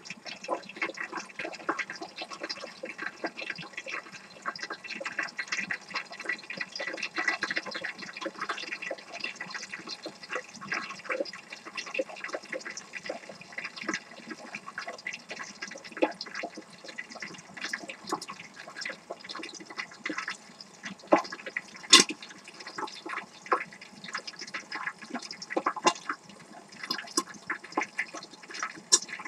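Hot oil sizzling and crackling in a lidded pot as food deep-fries, a steady dense crackle with scattered sharper pops, the loudest about 22 seconds in and again near the end.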